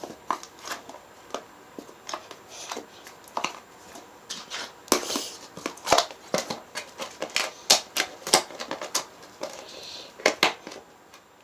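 Clear slime being squished and poked by hand: a string of irregular sticky clicks and small pops, coming thicker through the middle.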